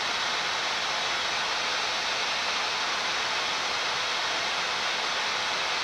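Steady rushing hiss of a Boeing 787-9 flight deck in flight, the even background of airflow and ventilation during the descent.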